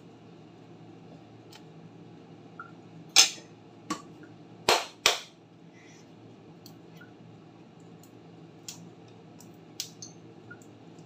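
Sharp clicks and knocks from a jar lid and a fork being handled while a new jar of sauce is opened. One loud knock comes about three seconds in, a quick pair follows near five seconds, and a few light ticks come near the end.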